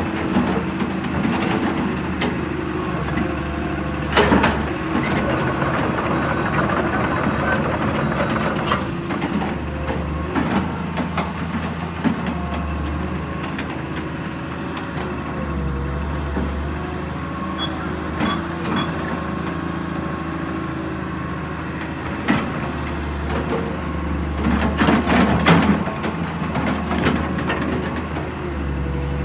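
E200B excavator's diesel engine running steadily at work, its pitch shifting a little with load. Occasional clanks and knocks are heard, with a loud cluster about four seconds in and another near twenty-five seconds.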